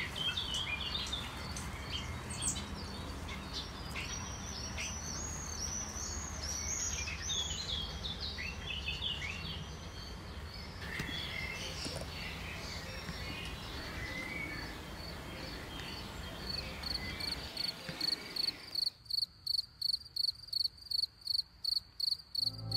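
Several songbirds singing in a busy chorus of chirps and short phrases over a low, steady background noise. Near the end the birds stop, and an insect chirps alone in an even rhythm of about three high pulses a second.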